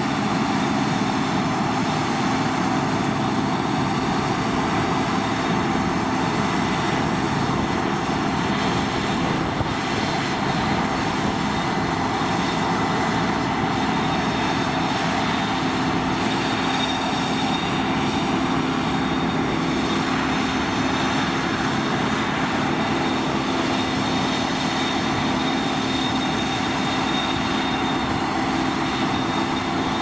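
Deutz-Fahr 5690 HTS combine harvester running steadily under load while harvesting spring barley: engine and threshing machinery together, with a thin, steady high whine over a deep hum.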